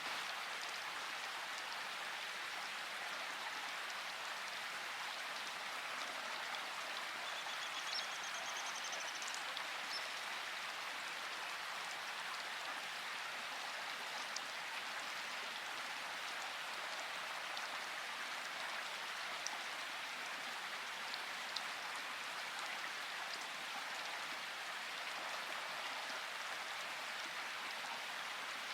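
Steady rain falling, an even continuous hiss, with a few single drops ticking a little louder here and there.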